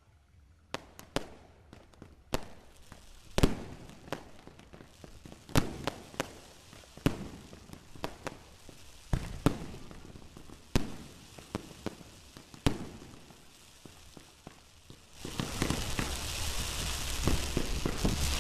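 Fireworks going off: single sharp bangs, one every second or two, then about three-quarters of the way in a dense, continuous crackling sets in and grows louder.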